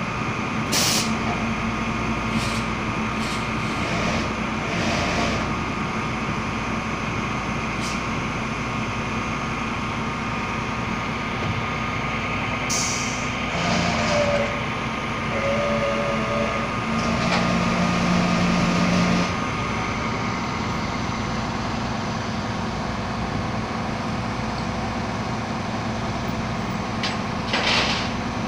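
Tow truck engine running steadily, with a few short air hisses and knocks along the way.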